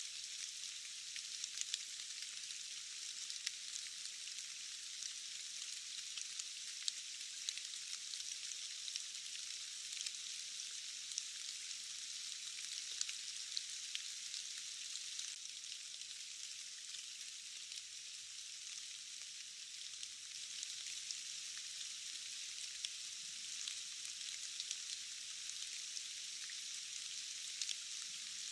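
Steady rain hiss with many small scattered drop ticks, all high-pitched with no low rumble beneath.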